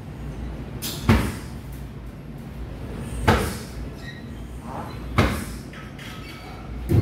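Sharp thuds from kickboxing training, about one every two seconds, each with a short echo in the hall.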